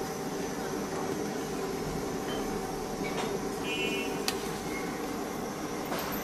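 Steady background hum of a street-food stall over a pot of boiling dumplings. A brief high chirp comes a little past the middle, and there are a couple of sharp clicks, the last as a chopstick stirs in the aluminium pot near the end.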